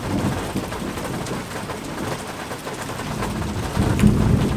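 Night thunderstorm: steady rain with rolling thunder, the rumble swelling loudest about four seconds in with a sharp crack.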